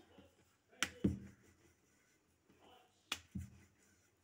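Wooden rolling pin working dough on a round stone rolling board. Twice, a sharp click is followed about a quarter second later by a dull knock as the pin and board knock with each rolling stroke.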